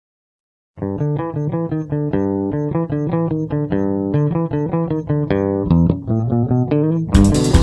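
Rock band music: after a moment of silence, plucked guitar and bass play a steady run of notes without vocals, and the full band with drums comes back in loudly near the end.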